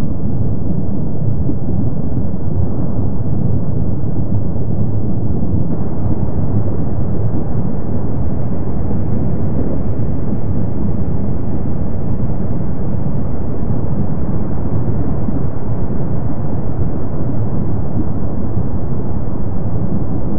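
Kilauea's lava fountains erupting: a loud, steady, deep rumble that never lets up.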